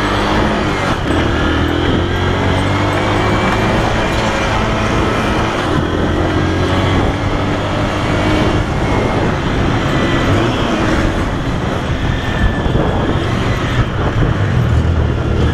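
Honda CG 125 single-cylinder four-stroke engine running under way, its pitch rising several times as it pulls through the gears, with wind noise over the microphone.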